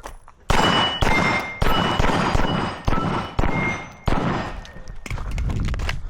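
A string of about seven pistol shots fired at a steady pace during a match stage, each with a long echoing tail. Several shots are followed by a brief metallic ring from steel targets being hit.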